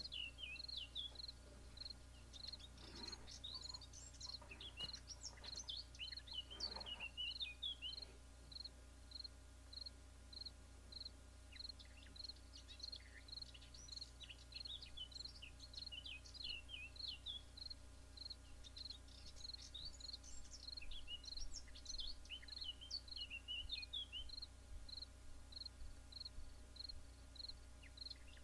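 Faint woodland birdsong: irregular high twittering and chirping calls over an even train of short high chirps repeating about twice a second.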